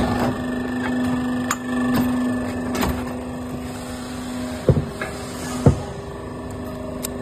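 A new bearing being pressed into place: a steady machine hum with scattered clicks, then two sharper knocks about a second apart past the middle.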